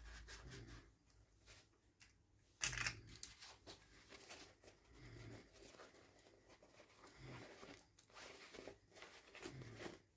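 Faint handling of toy packaging: short rustles and small clicks, with one louder tearing rustle about two and a half seconds in.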